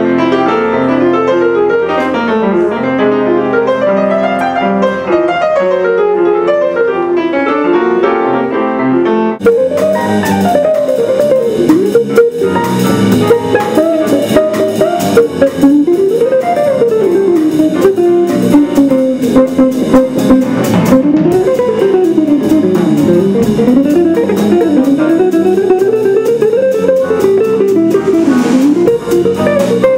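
Jazz combo playing: a grand piano alone at first, then about nine seconds in an electric guitar, electric bass and drum kit with cymbals come in and the full band swings together.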